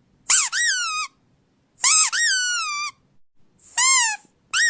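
A squeaky toy being squeezed again and again: four high-pitched squeaks, each rising then falling in pitch, roughly a second or two apart, the last one starting just before the end.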